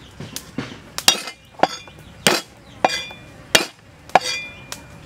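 Cleaver chopping down through garlic cloves onto a thick wooden chopping block: about eight sharp knocks, one every half to three-quarters of a second, each with a brief metallic ring from the blade.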